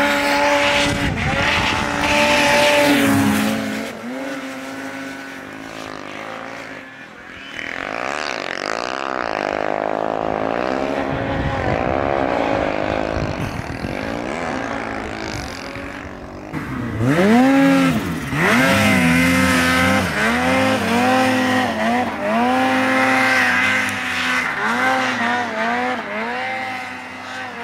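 Turbocharged two-stroke snowmobile engines revving up and easing off again and again as the sleds push through deep powder. A close sled comes in loudly about two-thirds of the way through, with sharp rises and falls in pitch.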